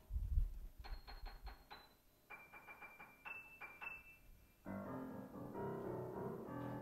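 Piano played: after a low thump at the start, fast repeated notes at the very top of the keyboard and a high trill, then lower notes from about two-thirds of the way through, a high-pitch sound followed by a low-pitch one.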